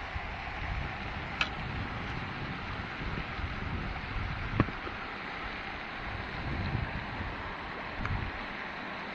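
Wind buffeting the microphone over a steady outdoor hiss, with three short sharp clicks, the loudest about halfway through.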